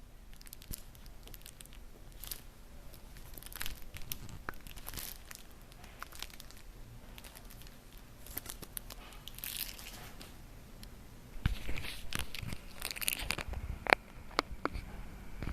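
Handling noise on a camcorder: scattered rustles, scrapes and clicks of fingers working the camera, getting louder and busier in the last few seconds.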